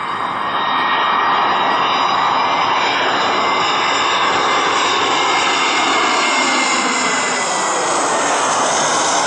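Turbofan engines of an Airbus A320-family jet airliner at approach power, gear down, passing low overhead on landing approach: a loud steady rush with a high whine that slowly drops in pitch, and sweeping tones that fall as the jet goes over.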